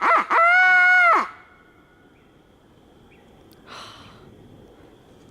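Crow locator call blown by a turkey hunter to shock gobblers into answering: the last short caw of a run, then one long, drawn-out caw about a second long. A short rustle follows about four seconds in.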